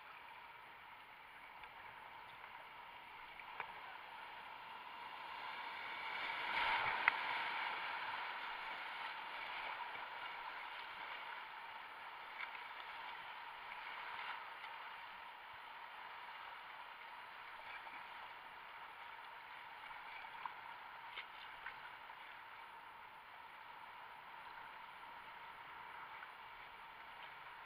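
Rushing whitewater river water heard from a kayak's deck: a steady rush that swells louder for a few seconds about six seconds in, with a few sharp knocks.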